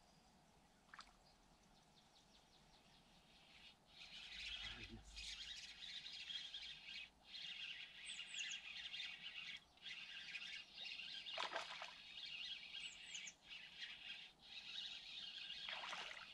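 Small birds singing and chirping, starting about four seconds in, with short high call notes; two brief falling sweeps stand out in the second half.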